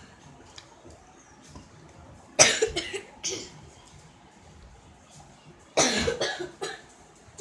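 A young person coughing hard in two fits, one about two seconds in and another near six seconds, each a quick run of several coughs, his throat irritated by very spicy chips.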